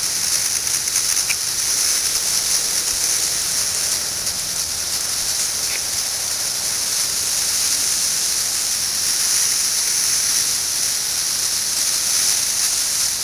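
A chorus of periodical cicadas: a steady, dense, high-pitched buzzing hiss.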